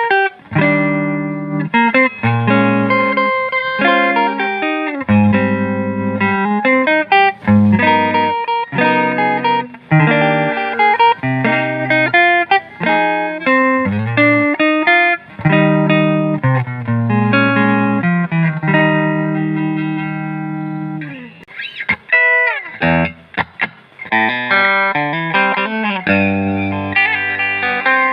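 Telecaster electric guitar playing a mix of ringing chords and single-note lines. About three-quarters of the way through, the ringing stops for a few short, choppy strums, then denser playing resumes.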